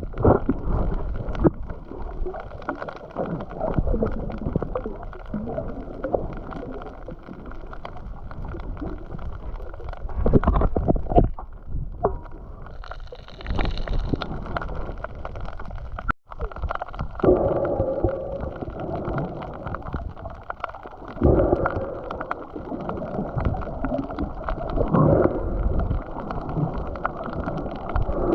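Water sloshing and gurgling, heavily muffled, with irregular surges and bumps.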